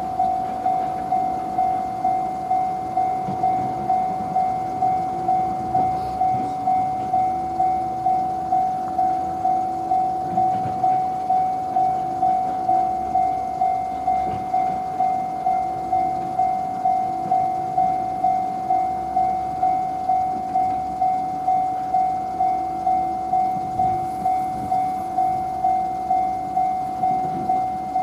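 Japanese railroad crossing alarm ringing its electronic "kan-kan" bell, a steady repeated strike at about three strikes every two seconds, signalling that the crossing is closed for an approaching train.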